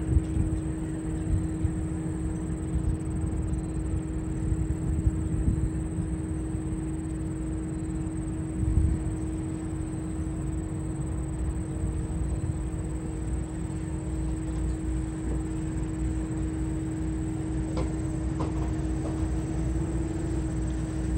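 A steady machine hum holds one even pitch throughout, over an uneven low rumble.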